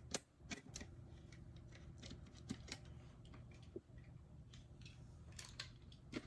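Faint, irregular clicks and snips as the shrink-wrap on a photobook album is cut open and handled.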